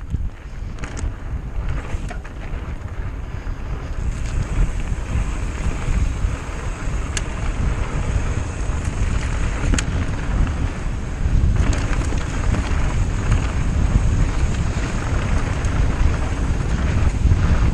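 Wind buffeting the microphone over the low rumble of a mountain bike rolling down a dirt trail, getting louder as it goes, with a few sharp clicks and rattles.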